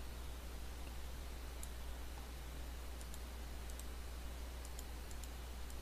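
Faint computer mouse clicks, several in quick pairs, from about one and a half seconds in, over a steady low hum and hiss.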